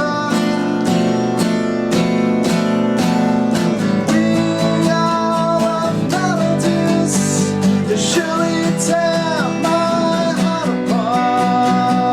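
A band playing live: strummed acoustic guitar with steady drum and percussion hits, and a melody line that bends and glides in pitch over it.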